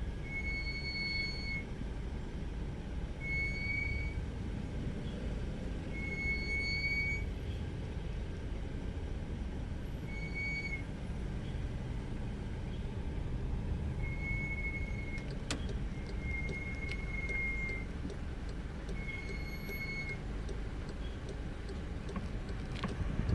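New VAG brake pads (part JZW698151B) squealing: short high-pitched squeals, about seven of them, recurring every few seconds over a steady low rumble. The squeal of pads that are still noisy after about 300 km of use.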